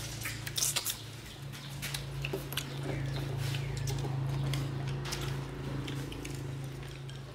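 Chopsticks clicking against porcelain rice bowls as people eat at a shared table, with a cluster of clicks in the first second or so and a few more later. A steady low hum runs underneath, growing louder in the middle.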